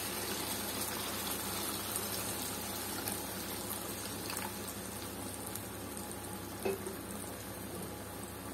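Tamarind extract poured in a steady stream into a hot iron kadai of spiced fish pieces, splashing and bubbling in the pan; a brief knock about two-thirds of the way through.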